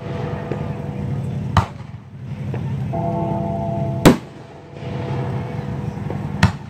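Three aerial firework shells bursting with sharp bangs, about two and a half seconds apart, the middle one the loudest, over music playing throughout.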